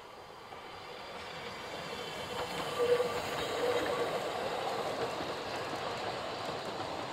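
Narrow-gauge steam train, a double Fairlie locomotive hauling coaches, approaching and running past on a curve. It grows louder over the first three seconds, then the coaches rumble by steadily, with a thin wheel squeal from the curved track.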